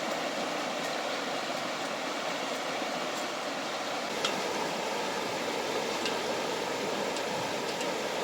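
Fast-flowing river water rushing steadily, with a single sharp click about four seconds in.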